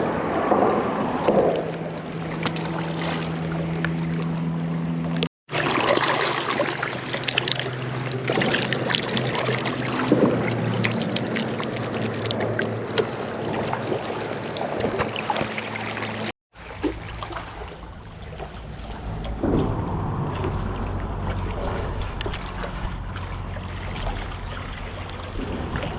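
Flowing river water with wind buffeting the microphone, a steady rushing noise broken twice by brief silent gaps where clips are cut together.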